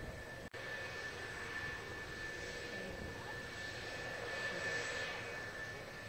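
F-4EJ Kai Phantom II jets' J79 turbojet engines running at taxi power: a steady high whine over a jet rumble, swelling briefly about five seconds in. A brief dropout cuts the sound about half a second in.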